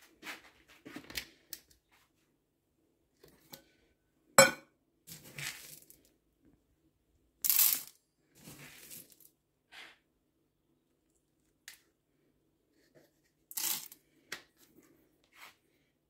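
Scattered clicks, taps and short rattling rustles of parrot seed mix and feeding bowls being handled, with one sharp click about four seconds in and brief rattling rustles about halfway through and near the end.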